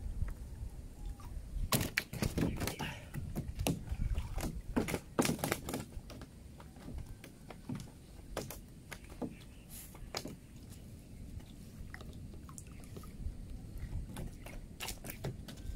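River water sloshing and splashing around a person wading chest-deep, with many sharp knocks and splashes, thickest in the first six seconds and again near the end.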